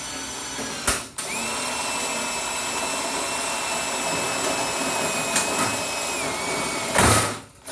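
Electric drill drilling through two layers of stainless steel sheet, running with a steady whine. It stops briefly about a second in and then restarts. Near the end the whine drops in pitch, and a short louder burst comes just before it stops.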